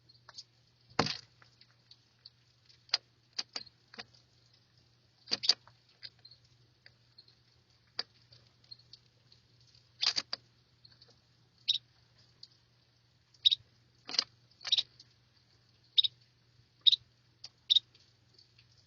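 A bird tapping and scrabbling, trying to get inside: irregular sharp taps and clicks, some in quick pairs, a few seconds apart, over a faint steady hum.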